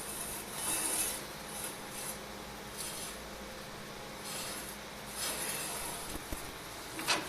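Metal workpieces scraping and rubbing in several short strokes over a steady electrical hum, with one sharp metallic clink near the end.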